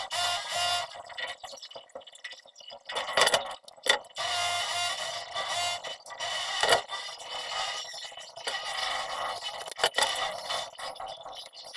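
Plastic PP-R water pipes scraping and knocking as they are handled by hand, with a few sharp knocks among the scratchy rubbing.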